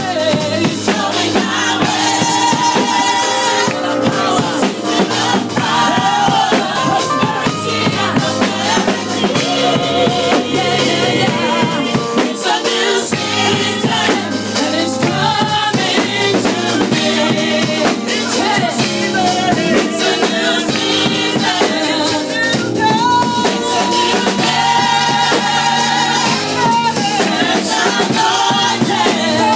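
Church praise music: singing voices over a drum kit keeping a steady beat.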